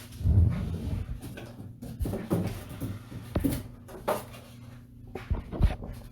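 Rummaging through packaging and parts: a rustle of low handling noise, then a series of separate knocks and clicks spread over several seconds.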